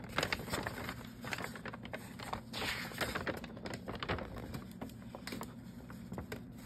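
Paper rustling and crackling as a large folded kit instruction sheet is unfolded and handled: a run of small irregular crackles and taps.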